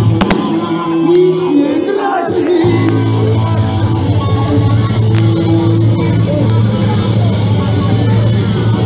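Live band playing rock music over a PA, with a voice singing and shouting over it. The first couple of seconds are a held bass note under the voice; the full band, cymbals included, comes in a little under three seconds in.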